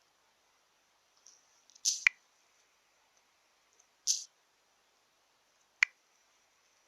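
A few isolated handling sounds: a short rustle ending in a sharp click about two seconds in, a brief rustle about four seconds in, and a single sharp click near the end.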